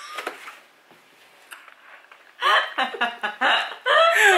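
Paper gift box rustling as it is opened, then laughter in short, choppy bursts from about halfway in.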